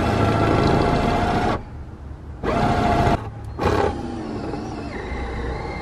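Electric drill boring down through the car's sheet-metal floor pan for a seat-bracket through-bolt, its motor whining steadily as the bit breaks through. It stops about a second and a half in, then gives two short bursts before running more quietly.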